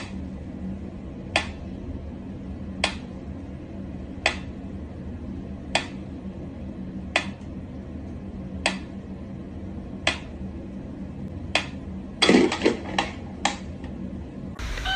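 Mechanical pyramid metronome ticking slowly and evenly, about one tick every second and a half. Near the end comes a quick flurry of louder clacks and a knock.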